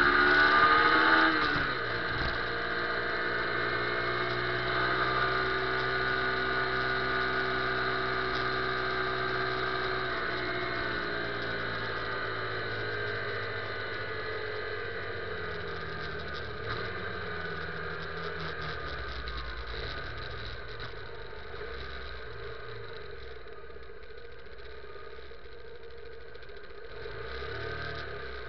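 Motorcycle engine rising in pitch as it pulls away in the first couple of seconds, then running steadily. From about halfway the engine eases off, its pitch falling and the sound fading, and it settles to a quiet low idle near the end.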